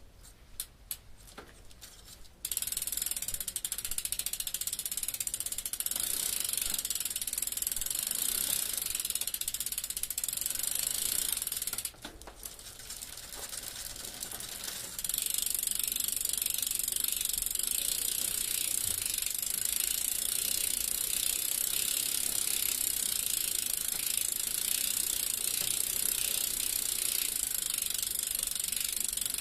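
Bicycle rear freewheel ratchet clicking: a few separate clicks at first, then a fast, steady buzz of pawl clicks as the rear wheel spins freely, briefly quieter about halfway through.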